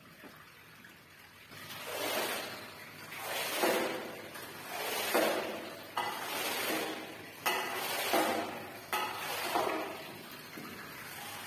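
Rubber floor squeegee dragged over a soaked rug and wet tiles, pushing off dirty water in repeated wet swishing strokes about one every second or so, with a few sharp knocks among them.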